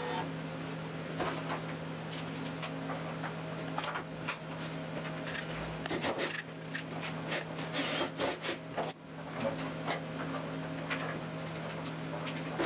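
Wooden torsion-box rib strips being handled and slotted together: scattered knocks and clatters of wood on wood, with a longer rubbing scrape about eight seconds in. A steady low hum lies underneath.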